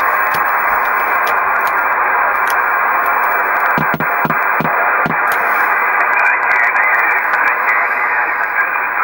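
Steady hiss of a President Madison CB base station's receiver on an empty channel, with faint steady whistles in it. About four seconds in, a few short clicks come as the rotary channel selector is turned from channel 9 to 12.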